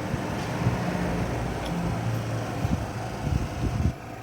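Steady low mechanical hum, with a few dull low knocks about three to four seconds in.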